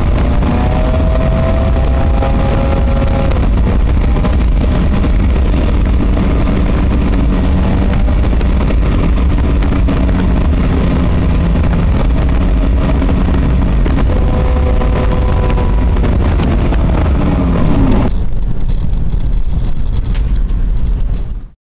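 Subaru EJ22 flat-four engine in a VW bus, heard from inside the cab over road and wind noise. The engine pitch climbs near the start and holds steady. Later it falls away as the bus slows, the road noise dies down, and the sound cuts off suddenly near the end.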